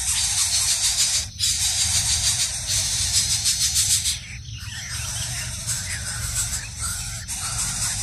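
Background music with a steady beat, breaking off briefly about every three seconds.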